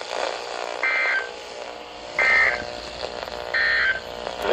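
NOAA Weather Radio SAME end-of-message code: three short, high-pitched buzzy digital data bursts about a second and a half apart, over radio hiss, signalling the end of the Required Weekly Test.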